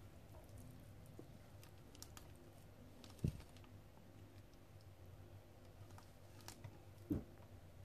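Faint clicks and light taps as slices of a baked meat roll are handled and set down on a plate, with two short, low thumps, one about three seconds in and one near the end, over a low steady hum.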